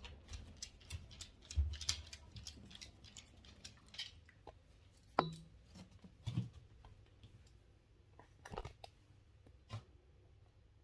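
Dog's claws clicking and tapping irregularly on a hard indoor floor as it walks about, with a few louder knocks about five and six seconds in.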